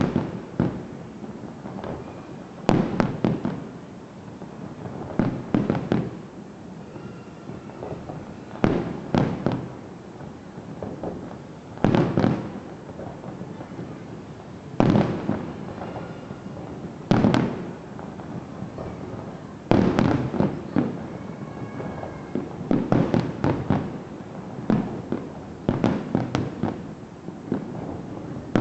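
Aerial firework shells bursting in a display: loud bangs every one to three seconds, often several in quick succession.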